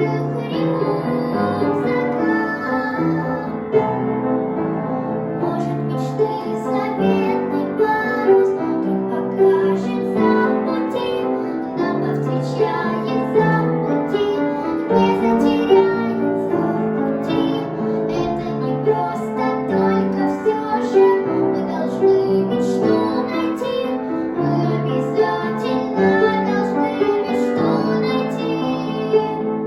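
A young girl singing a song over a backing track with piano, without a break.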